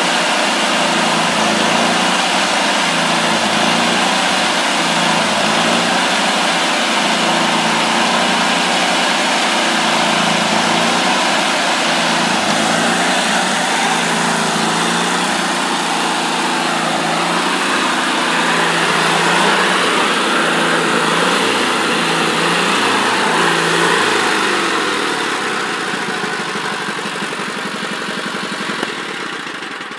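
Homemade band sawmill running at cutting speed with no log in it: the engine and the spinning band wheels and blade make a steady mechanical running, which gets quieter over the last several seconds.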